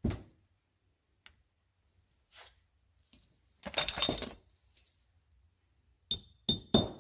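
Small hammer tapping a bent brass carburetor part set on a socket, straightening it out. A dull knock at the start, a brief metallic clatter around the middle, then four quick, sharp ringing taps near the end.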